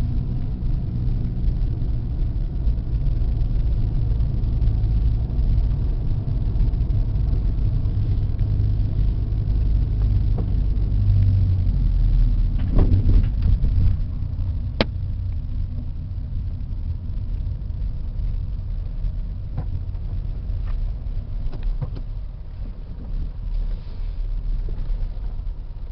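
Car engine and road rumble heard from inside the cabin while driving slowly, quieter in the second half. A single sharp click sounds about 15 seconds in.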